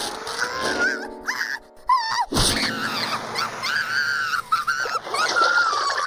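High-pitched cartoon character's whining, wavering cries over cartoon music, with a sharp hit about two seconds in.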